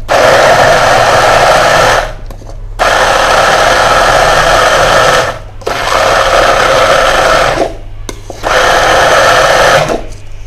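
Hand-held immersion blender running in a plastic beaker, puréeing boiled lemon pieces, peel and all, in their cooking water. It runs in four bursts of about two seconds each, with short pauses between.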